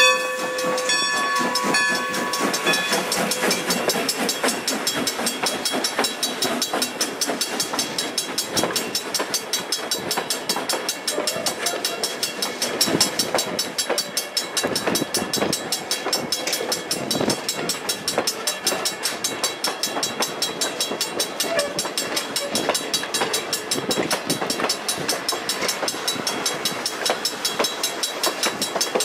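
A steam-hauled passenger train's coaches rolling past close by, their wheels clicking steadily over the rail joints. A steam whistle's chord dies away in the first couple of seconds as the locomotive passes.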